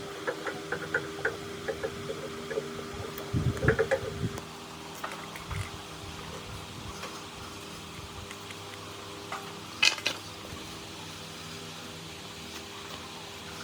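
Steady electric motor hum with scattered light metallic clicks and taps, a short run of louder knocks about four seconds in, and one sharp clatter near ten seconds.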